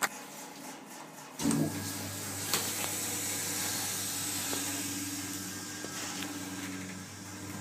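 Hydraulic lift's pump motor starting with a sudden jolt about a second and a half in, then running with a steady hum and a hiss.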